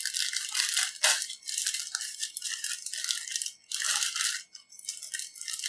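Packaging crinkling and rustling in irregular bursts as a sugar cookie is handled and taken out.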